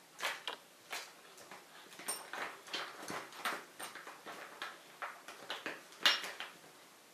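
Hands rummaging through a plastic tackle box: irregular small clicks, taps and rattles of items being picked through, the sharpest click a little after six seconds in.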